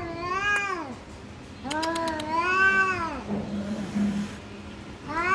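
Two cats in a standoff yowling at each other: long, drawn-out, wavering caterwauls, three of them, with a brief low growl in between.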